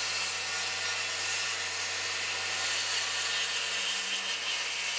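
DeWalt FlexVolt 60V cordless circular saw running steadily as it cuts across a stack of clamped red oak strips in one pass.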